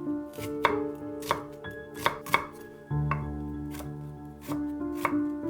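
Kitchen knife chopping an onion into small chunks on a cutting board, in a handful of irregular sharp strokes. Soft background music plays under it.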